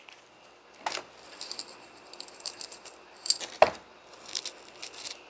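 Light rattling ticks as black pepper is shaken out over the pan, in irregular clusters, with two sharper knocks, about a second in and again midway.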